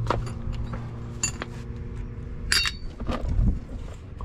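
Metal tools or brake parts clinking together as they are handled: three sharp clinks about a second apart, the last and loudest ringing briefly.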